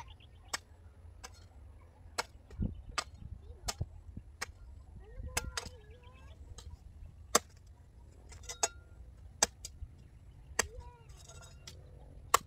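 Garden hoes chopping into dry, clumpy soil: a series of sharp, irregular strikes about one a second as the ground is broken up for planting.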